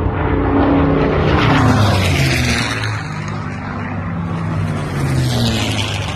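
World War II piston-engined warbirds flying past at an airshow, their propeller engines running loud and steady. The engine note drops as an aircraft passes, about a second or two in, and again more faintly around five seconds in.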